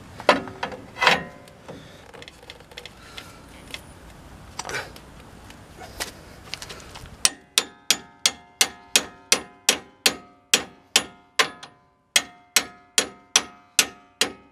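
A hammer striking the steel parts of a pickup's front suspension, knocking a part sideways to line it up. A few scattered knocks come first, then about halfway in a fast, even run of ringing metal blows starts, about three a second, with a short pause near the end.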